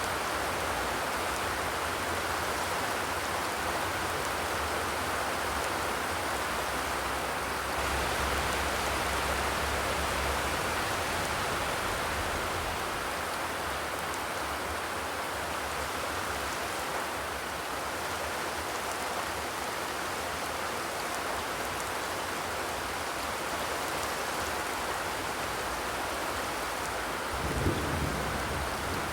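Steady rain falling in an even hiss. Near the end a low rumble comes in underneath it.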